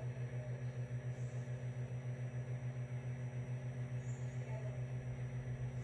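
A steady low electrical hum that pulses evenly about eight times a second.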